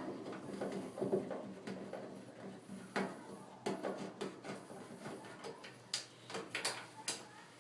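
Scattered small clicks and light knocks of a Phillips screwdriver and hands working loose the screws that hold a dryer door switch, with plastic and sheet-metal parts being handled; the clicks come closer together near the end.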